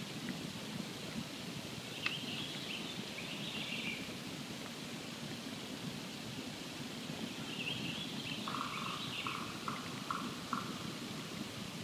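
Campfire burning with a steady low crackle and a few sharp pops. A bird calls over it: a chatter of high notes about two seconds in, another near the middle, then a short run of about five lower notes.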